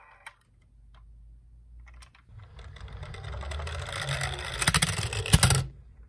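Die-cast toy ambulance rolling down a slope on a wooden surface, its small wheels rattling louder and louder for about three seconds. It stops abruptly near the end after a couple of sharp clacks.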